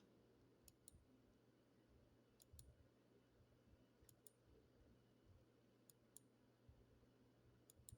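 Faint computer mouse clicks: five quick double clicks, evenly spaced every second and a half to two seconds, as a weather model map is stepped forward frame by frame. A low hum sits underneath.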